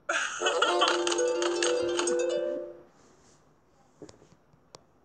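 A short musical jingle from a children's story app: a quick run of notes ending on two held notes, about two and a half seconds long. Two faint clicks follow near the end.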